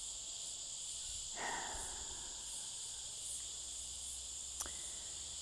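Steady chorus of insects, typical of crickets: a continuous high trill with a faint regular pulsing. A short click sounds near the end.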